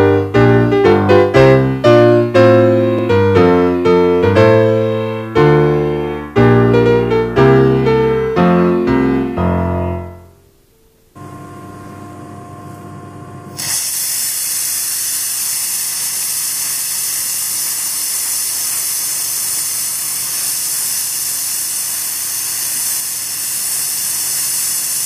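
Piano music that fades out about ten seconds in. A few seconds later a small oscillating engine starts hissing loudly and steadily as it runs.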